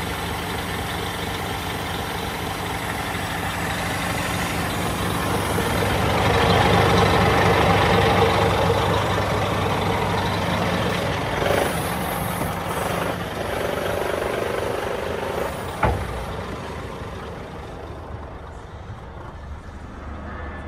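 Scania R440 truck's diesel engine idling steadily, swelling louder for a few seconds in the middle. About halfway through comes a brief hiss of air, and near the end a single sharp click, after which the engine sound turns duller.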